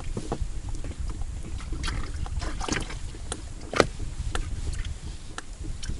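Low rumble of wind and water lapping around an inflatable boat, with small metal clicks of treble hooks and split rings being fitted to a large pike lure; one sharper click a little after halfway.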